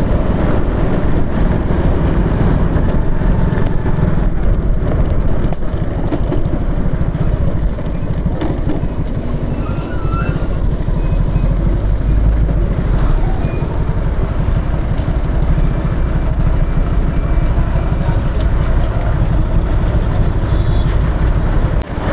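Motorcycle being ridden on an open road: engine running steadily under a heavy, even rumble of wind on the microphone.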